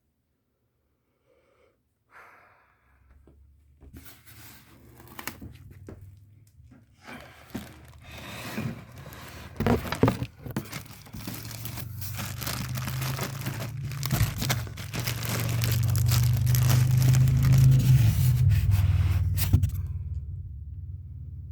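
Packaging being torn and crinkled while an appliance is unboxed, with scattered knocks from handling. It starts after a couple of seconds of near silence, and a low rumble builds underneath toward the end.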